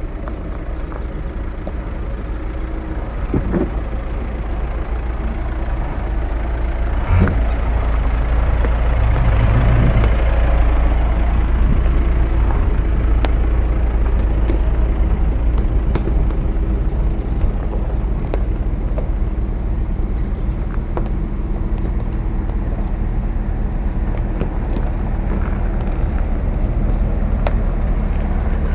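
Off-road SUVs crawling one after another through a rutted dirt gully, engines running at low revs and growing louder as a Volkswagen Amarok and then a Cadillac Escalade pass close by. A single sharp knock about seven seconds in.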